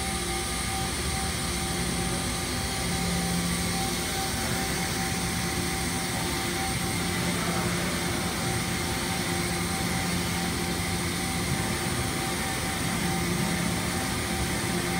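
Steady hum of a powered-up Mazak Variaxis 630-5X five-axis vertical machining center, a few fixed tones over a hiss, the lowest tone swelling and fading a few times.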